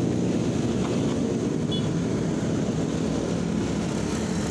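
Motorcycle engine running steadily while riding in traffic, under a dense, even low rumble.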